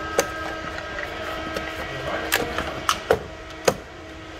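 Plastic screw cap being twisted off a five-quart Mobil 1 motor oil jug: a handful of sharp plastic clicks and crackles over a faint steady hum.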